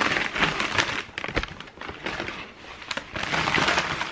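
Paper packaging rustling and crinkling in irregular bursts as a trainer is handled and lifted out of its box, louder at the start and again near the end.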